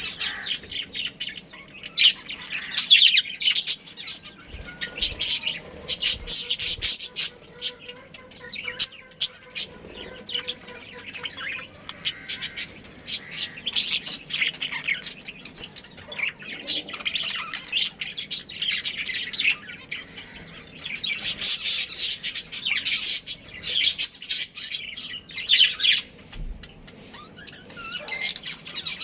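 A colony of budgerigars chirping and chattering: dense, rapid high calls that swell and fade in waves every few seconds.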